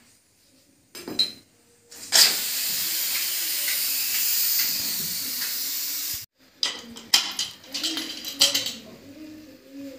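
A pressure cooker venting steam: a loud, steady hiss lasts about four seconds and cuts off suddenly. Metal clinks and knocks follow as the cooker of boiled potatoes is opened.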